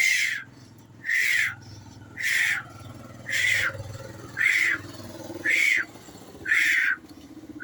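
A man breathing out hard in short puffs, one with each push-up, eight times at a steady pace of about one a second.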